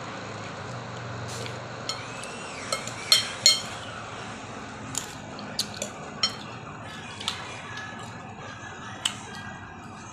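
Spoon and dish clinks while eating: sharp, scattered clicks, the loudest two about three seconds in, over steady background noise.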